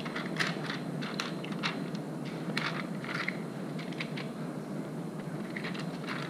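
A glossy plastic sticker sheet crinkling and crackling in the hands as stickers are peeled off it and pressed onto a notebook page: a string of short, irregular rustles.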